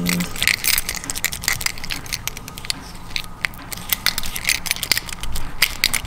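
Small metal parts being handled: a door lock cylinder worked and pushed into its housing by hand, giving a rapid run of light clicks and scrapes.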